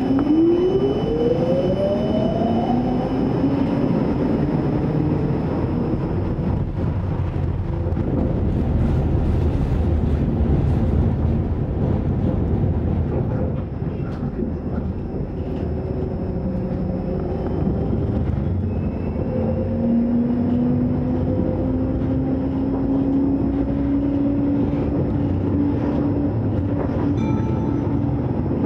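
Tram heard from inside the car: the electric traction motors whine, rising steeply in pitch as it pulls away and accelerates in the first few seconds, over a steady rumble of wheels on rail. Another whine rises slowly in pitch in the last third as it picks up speed again.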